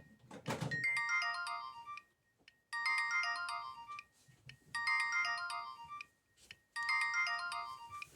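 Nokia mobile phone ringtone playing through the phone's speaker: a short synthesized phrase of chiming notes, looped four times about every two seconds. A brief thump comes near the start.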